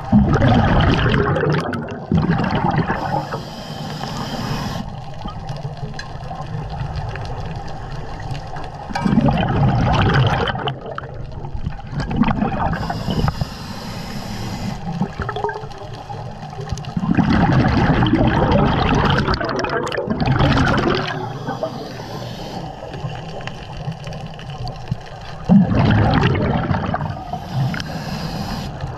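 A scuba diver breathing underwater through a regulator: four bursts of exhaled bubbles gurgling past, roughly every eight seconds, with the regulator's hiss of inhalation in between.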